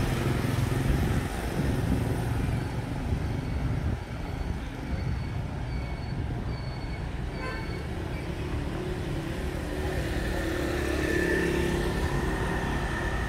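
Motorbike and car traffic passing along a city street, a steady low rumble. A short run of faint high chirps comes in the middle, and near the end a motorbike passes close, its engine note rising and fading.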